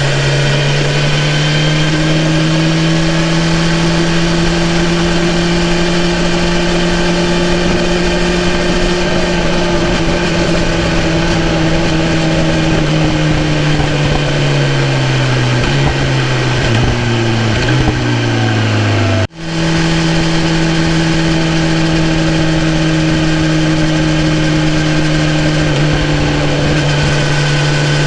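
2018 BMW S1000RR's inline-four engine running at a steady cruising pitch, sagging gradually as the bike slows. It breaks off for an instant about two-thirds of the way through, then carries on steady.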